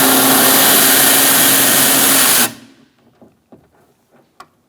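A cordless power tool drives an 11 mm socket, running steadily for about two and a half seconds to back off an exterior door handle's mounting nut, then stops suddenly. A few faint clicks follow.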